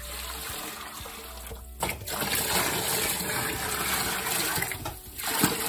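Water poured from a plastic bucket into a horse's water tub, splashing as it fills and getting louder about two seconds in.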